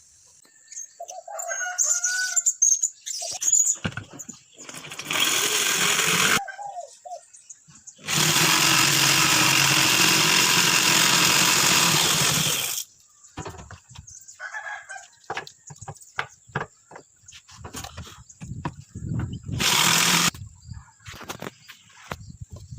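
A rooster crows near the start. Then come three bursts of a steady, loud mechanical noise, the longest about four seconds, among scattered clicks and knocks of handwork.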